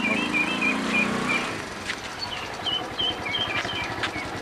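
Small motorcycle engine running low and dying away about a second and a half in, while a bird keeps chirping in short, repeated phrases.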